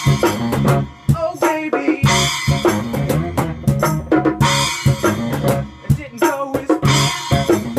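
Small rock band playing live: electric guitar, bass guitar and a drum kit with cymbals, all in a steady driving beat.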